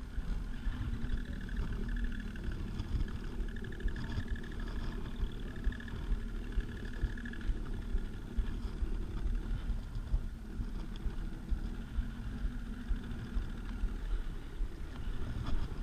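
Sea-Doo Spark Trixx personal watercraft's three-cylinder Rotax engine running steadily at low speed, with a steady whine over it and short knocks that recur roughly once a second.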